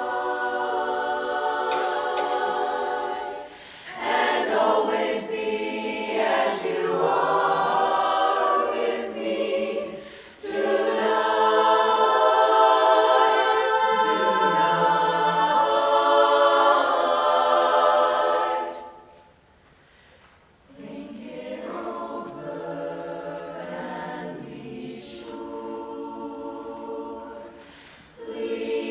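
Women's chorus singing a cappella. A long, loud held passage breaks off into a second or so of near silence, then the singing comes back softer.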